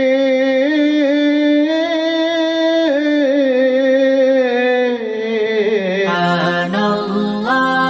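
A man singing a Bengali Islamic gazal into a microphone, drawing out long held notes that step up and then slide back down. About six seconds in, the sound changes to shorter stepping notes.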